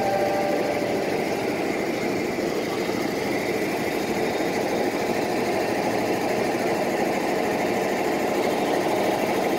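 Steady mechanical hum of a KRL Commuter Line electric commuter train standing at the platform with its onboard equipment running.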